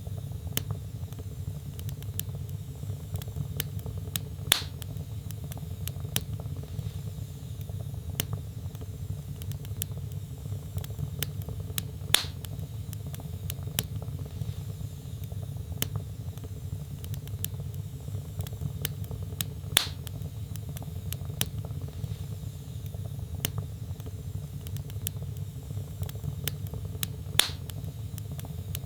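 Wood fire burning in a fireplace: a steady low rumble of flame under constant small crackles, with a louder pop about every seven and a half seconds.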